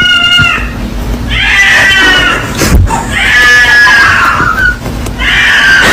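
A cat meowing loudly in long, drawn-out yowls, about four in a row with short gaps between them. There is a single sharp click just before three seconds in.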